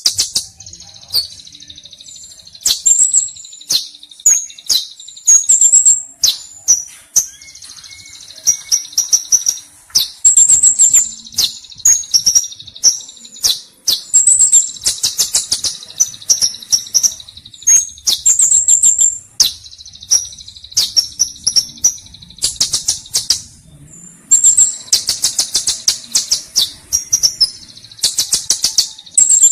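Kolibri ninja sunbird singing energetically: fast, high-pitched twittering phrases and rapid buzzy trills, repeated in bursts with short pauses between them.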